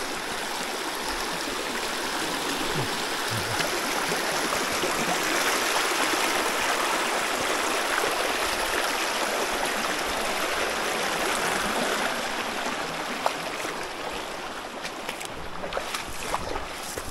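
Shallow creek rippling and gurgling over rocks and gravel in a steady rush of running water. It eases off a little near the end.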